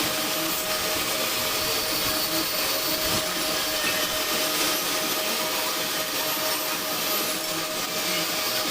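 Metal lathe running steadily, a continuous machine noise with a steady hum and a thin high whine that drops in pitch near the end.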